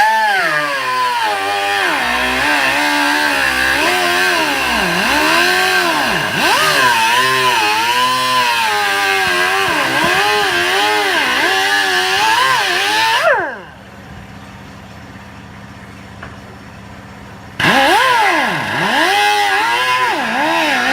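Angle grinder with a cut-off disc cutting through a car's steel body panel, its whine dipping and recovering as the disc bites under load. It spins down a little past halfway, starts again about four seconds later, and cuts briefly before stopping near the end.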